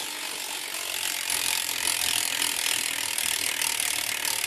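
Freewheel pawls of a BMX bike's stock rear hub ratcheting as the wheel spins, a steady run of very fast clicks that blur into a buzz.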